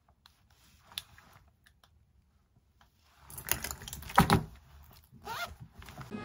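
Small objects handled on a tabletop: a single click about a second in, then from about three seconds in the rustle and clicking of a fabric zip pouch being picked up and handled, loudest around four seconds.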